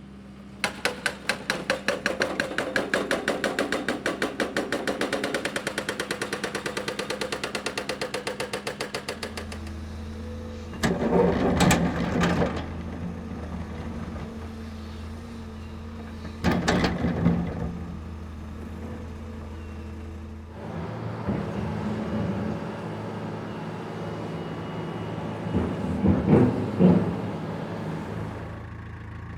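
Excavator diesel engine running steadily, with a fast rhythmic pounding of about seven beats a second through the first nine seconds, then three loud clanks and scrapes of working machinery, around eleven, seventeen and twenty-six seconds in.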